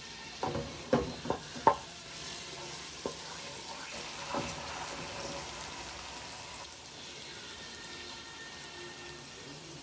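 Minced garlic sizzling in a frying pan while a wooden spoon stirs it, with a few sharp knocks of the spoon against the pan in the first two seconds, then a steady sizzle.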